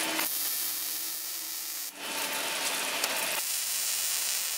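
MIG welding arc from a Miller-Matic 135 welder: a steady hiss in two runs, broken by a brief stop about two seconds in.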